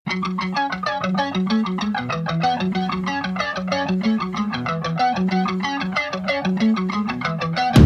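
Music: a fast, even run of single notes, about eight a second. Near the end a much louder, fuller rock band comes in.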